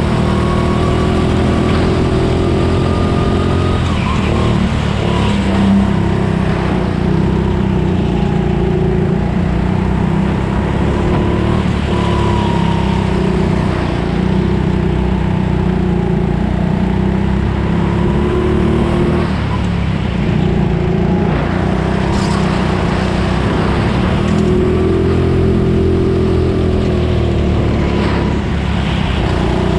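Go-kart engine heard from the driver's seat at race pace, its pitch climbing as the throttle opens and dropping sharply when it lifts for corners, several times over.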